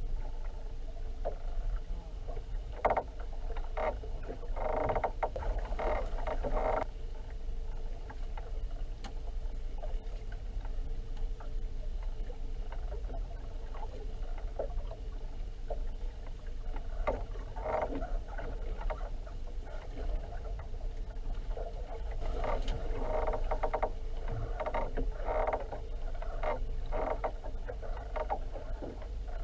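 Small fishing boat at sea: a steady low rumble with a faint steady hum underneath, broken by clusters of short knocks and rattles a few seconds in, around the middle, and through the last quarter.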